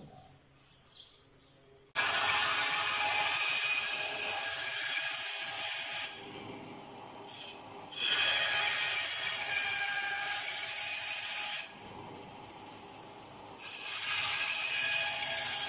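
Benchtop band saw cutting a curved shape in a thin strip of wood, starting suddenly about two seconds in. The cutting comes in three stretches with the saw quieter between them.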